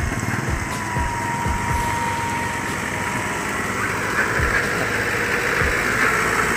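Engine of a laden Mitsubishi pickup truck running as it drives slowly past, with low rumbles and thumps, getting louder about four seconds in as it comes alongside.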